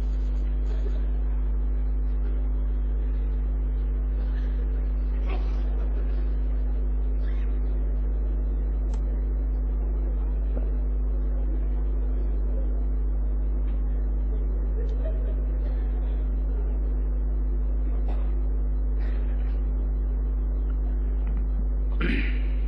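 Steady electrical mains hum, a low buzz at an even level, with faint murmuring voices and a few soft knocks in the chamber.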